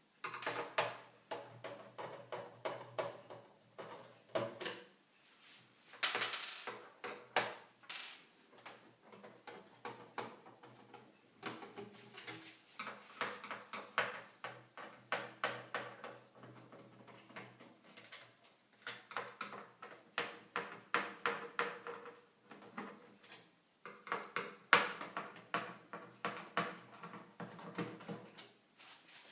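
A screwdriver backing out small screws from a PlayStation 3 motherboard and its metal frame, with runs of quick clicks and light metal clinks as screws and parts are handled.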